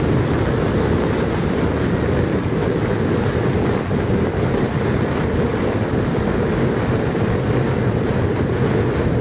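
Steady rushing noise of swollen floodwater flowing after heavy rain. It holds at an even level throughout, deep and full, with no breaks.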